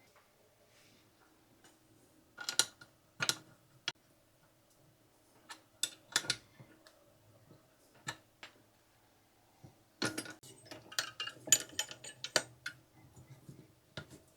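Scattered metallic clinks and knocks of tools and bike parts being handled during assembly, with a denser run of clicks about ten seconds in.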